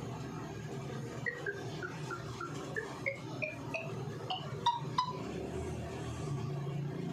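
Android TalkBack scroll tones from a Vivo Y31 phone's speaker as its Settings list is scrolled: a quick run of about a dozen short beeps, about three a second. They step down in pitch at first, then climb higher and higher, and end with two lower tones around five seconds in.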